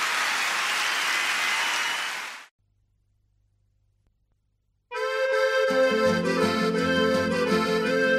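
Live-audience applause from the end of a concert recording fades out about two and a half seconds in. After about two seconds of silence, an accordion begins a tune, and bass notes join under it a moment later.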